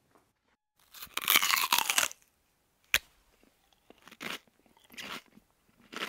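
A crisp cookie being bitten and chewed: a loud crunch about a second in, a sharp snap near three seconds, then short crunches about once a second.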